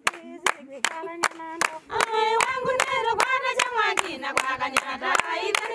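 A group singing with steady rhythmic hand clapping, about two to three claps a second.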